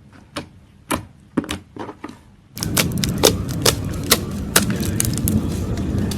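Slime being squeezed and pressed by hand, giving sharp clicking and popping sounds. At first the clicks are sparse and about a second apart; about two and a half seconds in it cuts to a louder stretch of quick, crackly clicks over a low rumble.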